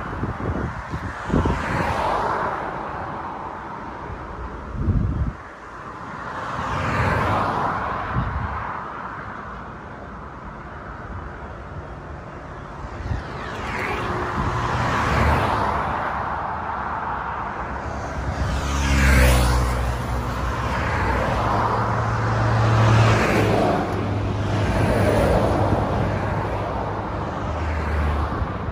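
Road traffic passing close by, one vehicle after another swelling and fading, with wind buffeting the microphone in the first few seconds. About two-thirds of the way in, a vehicle's engine runs with a low hum close by and stays until near the end.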